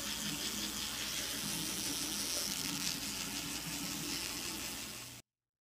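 Water running steadily from a bathroom tap into the sink, a constant hiss that cuts off abruptly near the end.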